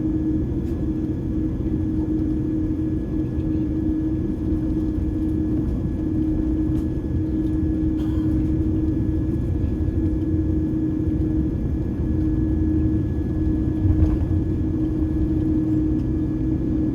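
Airliner taxiing, heard from inside the cabin: a steady low rumble of the jet engines at taxi power with a constant hum over it, and a brief thump about fourteen seconds in.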